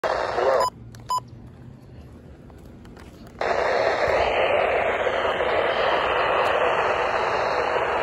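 Midland weather alert radio: its static-laden broadcast audio cuts out about two-thirds of a second in, with two short keypad beeps. Then, about three and a half seconds in, the NOAA Weather Radio broadcast comes back on through the radio's speaker as a steady, hissy signal.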